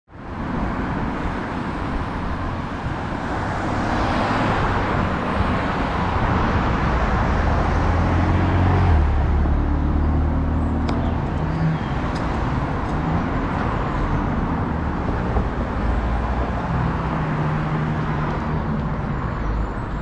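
Road traffic: a steady hum of passing cars, louder as a vehicle goes by between about four and nine seconds in.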